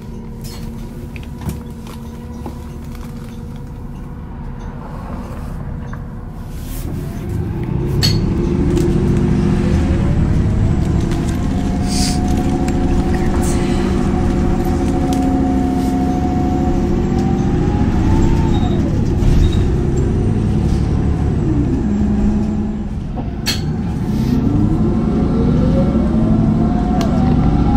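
City bus heard from inside the cabin, its engine rumbling and whining as it pulls away. The whine climbs in pitch about seven seconds in, holds steady, drops back around two-thirds of the way through, then climbs again as the bus speeds up.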